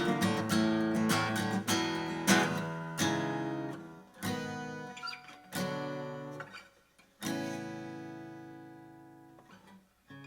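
Martin CEO-7 acoustic guitar strummed and picked. A quick run of strokes comes first, then single chords are struck and left to ring out, the last ringing for nearly three seconds as it fades away.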